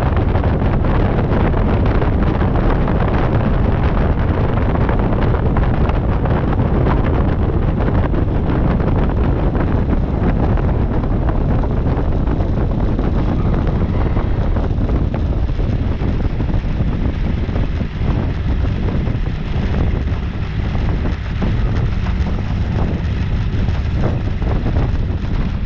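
A light aircraft's engine and propeller running as it taxis, with heavy wind rumble on the microphone. In the second half the sound thins and the engine beats come through more plainly as it slows.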